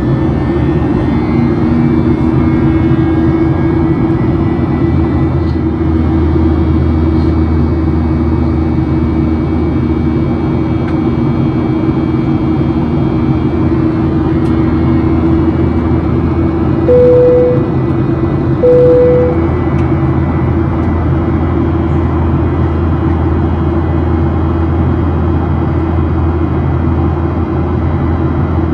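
Steady roar of a Boeing 737-900ER's CFM56-7B turbofan engine and airflow, heard inside the cabin over the wing as the airliner climbs. Roughly two-thirds of the way through, two short electronic tones of the same pitch sound about a second and a half apart.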